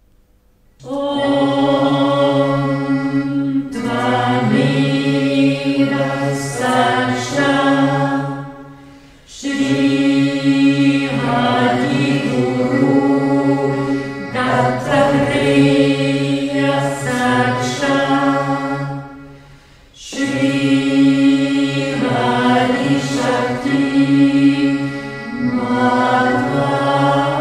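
Choir singing a slow, chant-like piece in long held chords, the phrases breaking off briefly about 9 and 19 seconds in.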